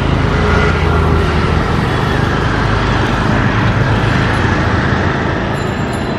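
Widebody twin-engine jet airliner on final approach with landing gear down: a steady, loud jet engine roar with a deep rumble.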